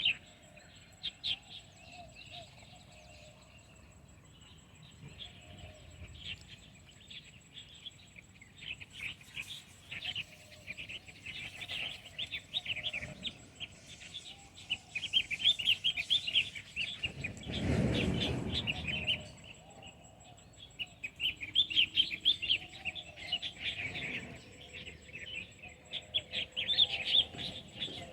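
Many small birds chirping and twittering in a busy chorus of short, high, rapid notes. About two-thirds of the way through, a deeper rushing noise swells and fades over about two seconds.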